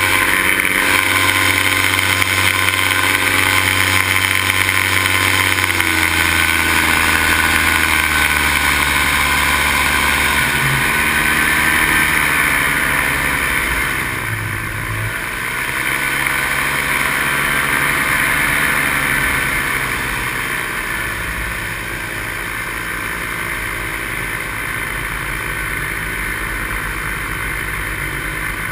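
Paramotor engine and propeller running steadily in flight. The engine note drops and wavers about halfway through, and it runs a little quieter in the last third.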